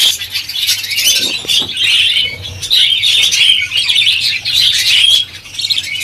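Budgerigars chattering, a dense, continuous twittering of high chirps that dips briefly about five seconds in.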